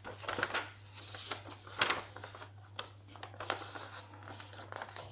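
Paper pages of a notebook being handled and turned by hand: irregular rustling with a few sharper crackles, the loudest a little under two seconds in, over a steady low hum.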